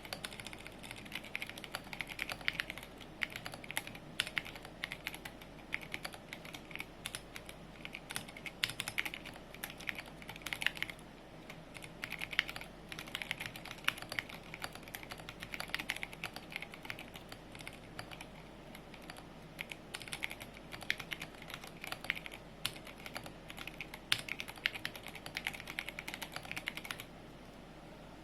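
Fast, continuous typing on a custom mechanical keyboard with Ergoclear 62g tactile switches, SA-profile keycaps and an acrylic sandwich case with a half plate. The typing stops about a second before the end.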